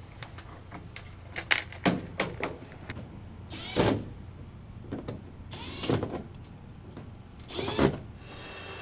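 Milwaukee Fuel cordless driver run three times in short bursts about two seconds apart, driving screws to fasten an aircraft wingtip back on. Small clicks and clatter of screws and tools come before the first run.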